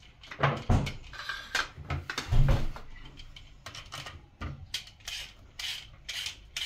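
Hand vegetable peeler scraping along carrots and then a potato in a run of short rasping strokes, with a few dull knocks in the first half.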